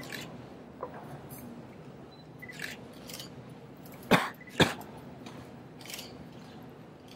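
Two sharp clicks about half a second apart, a little past the middle, over low room noise with a few faint swishes.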